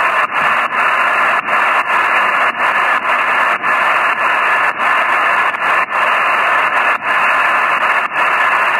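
HF shortwave receiver on 8122 kHz giving a steady rush of static on an open channel with no one transmitting. The hiss dips briefly and irregularly, about once or twice a second.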